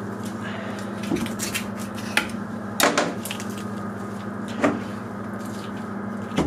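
A few sharp knocks and clicks as a deer hind leg is shifted and worked with a boning knife on a cutting table, over a steady low hum.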